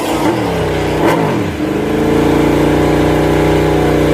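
Motorcycle engine revving sound, its pitch dipping and rising twice in the first second and a half, then held at a steady pitch, then cut off suddenly at the end.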